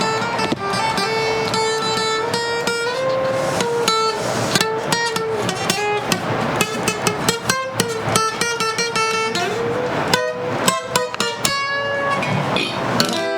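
A Spanish-language song with plucked guitars playing under a held, gliding melody line.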